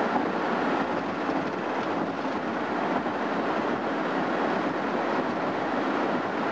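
Steady road noise inside a vehicle cruising at highway speed: tyre and wind noise with no breaks.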